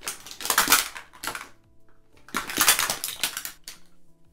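Small plastic makeup products clattering and rattling against each other as they are shaken and tipped out of a fabric storage box, in two bursts.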